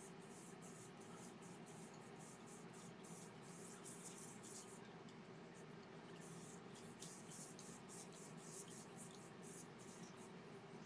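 Faint quick rubbing strokes, about two to three a second, from a cloth wiping Danish oil over a turned yew bowl, over a low steady hum.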